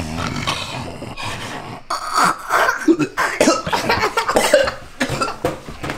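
A person coughing and making other throat noises in irregular bursts.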